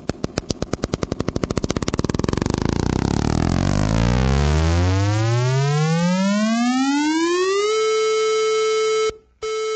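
Computer-generated unison pulse of clicks speeding up steadily until the clicks merge into a buzzing tone that glides up in pitch and settles on a steady A440 about three-quarters of the way through, the rhythm accelerated into pitch. The tone cuts off about nine seconds in and starts again a moment later.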